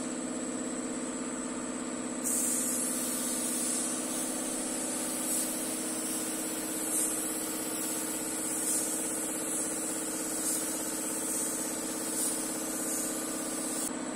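Air compressor running steadily under the hiss of a gravity-feed spray gun spraying primer, which starts about two seconds in and swells and dips with each pass of the gun until just before the end.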